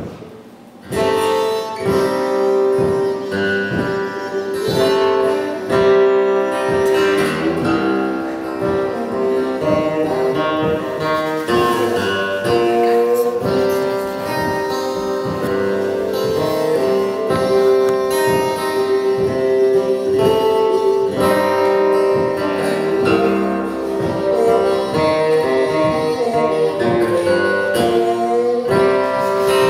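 Acoustic blues played on acoustic guitar and harmonica, starting about a second in. The guitar is picked in a steady rhythm under long held harmonica notes.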